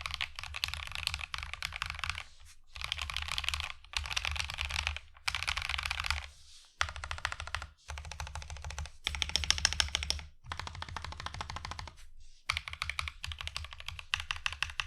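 Typing on a mechanical keyboard fitted with stock Akko CS Snow Blue Gray linear switches, which have a clacky, poppy sound. The keystrokes come in fast runs of a second or so, broken by brief pauses.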